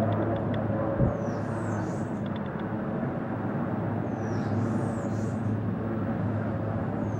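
A steady engine drone. A short, high, falling chirp repeats about every two and a half to three seconds, and a single thump comes about a second in.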